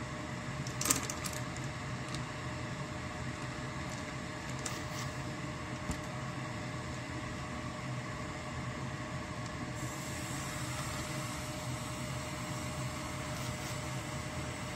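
Clam shells clicking against each other and the steel bowl as they are moved by hand in steamed egg custard: a sharp click about a second in and a few fainter ones later. Under it runs a steady appliance hum with hiss.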